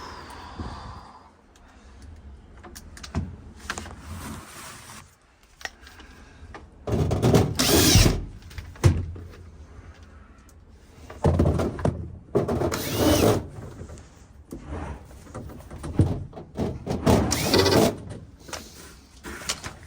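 Power drill running in three short bursts of a second or two each, typical of driving screws to fasten panels back on a refrigerator, with knocks and handling noise between.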